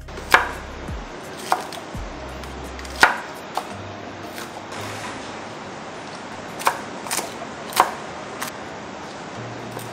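Cleaver chopping on a wooden cutting board, slicing meatballs and vegetables: about eight sharp, separate knocks, irregularly spaced.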